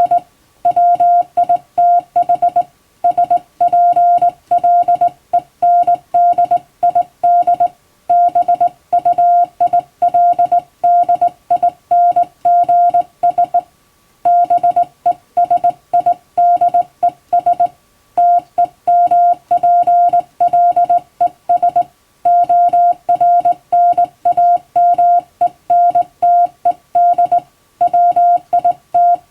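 Morse code (CW) sent by hand on a telegraph key, heard as one steady beep tone keyed on and off in dots and dashes, with brief pauses between word groups.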